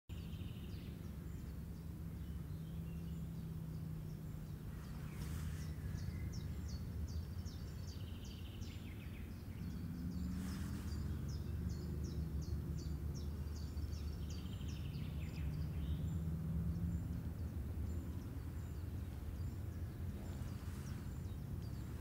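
Outdoor ambience: a steady low rumble with runs of short, high-pitched chirps repeating at intervals, and a few brief sharp sounds.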